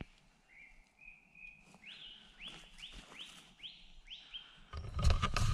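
A woodland bird singing: a short steady whistle, then a run of about six quick rising notes, evenly spaced about half a second apart. Near the end, loud rustling and knocks cover it.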